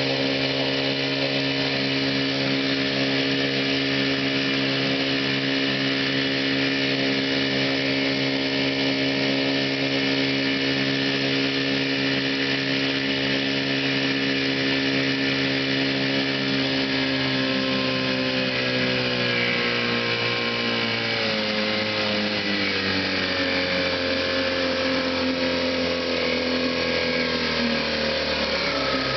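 1956 Hiawatha 5 hp two-stroke outboard motor, built by Scott-Atwater, running steadily, then throttled back about two-thirds of the way through so that its pitch falls and it settles at a slower, lower speed.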